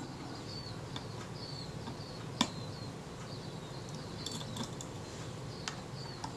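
A few faint clicks and taps of small metal parts as the Kodak Retina II camera body is handled, the sharpest about two and a half seconds in, over a low steady hum. Faint short high chirps recur throughout.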